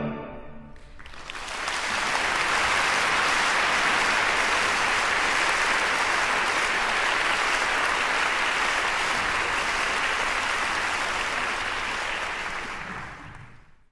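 Orchestra and voice cut off on the final chord, which dies away within about a second; then the audience applauds, building quickly, holding steady, and fading out near the end.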